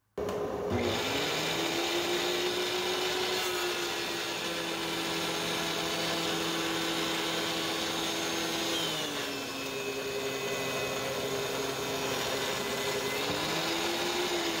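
DeWalt DW735 portable thickness planer, fitted with a Shelix helical carbide cutterhead, running steadily and planing boards fed through end to end. The motor's pitch dips about nine seconds in and climbs back near the end.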